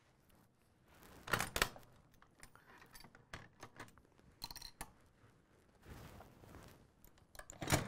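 Steel parts of an M2 .50-calibre heavy machine gun being handled: scattered metallic clicks and clinks, with a louder clatter about a second and a half in and again near the end.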